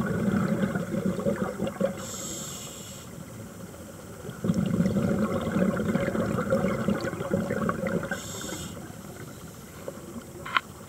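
A scuba diver breathing through a regulator underwater. Long bubbling exhalations alternate with short hissing inhalations, with inhales about two seconds in and again about eight seconds in.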